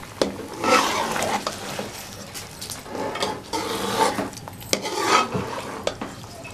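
Metal spatula stirring chicken through thick masala gravy in an aluminium pot, scraping along the pot and knocking against its sides with irregular clicks.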